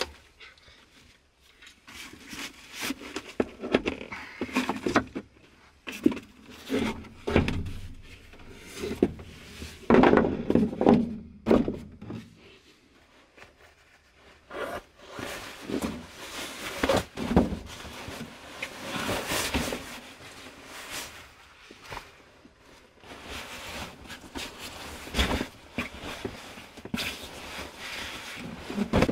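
Irregular knocks and clicks of a folding camp cot's metal frame being fitted together and set down, then rustling of nylon fabric as a sleeping bag is handled and pulled out of its stuff sack.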